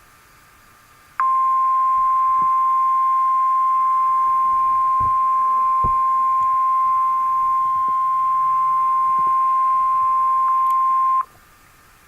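NOAA Weather Radio 1050 Hz warning alarm tone: one steady beep-like tone that starts about a second in, holds for about ten seconds and cuts off sharply near the end. It signals that an emergency alert follows, here a Severe Thunderstorm Watch.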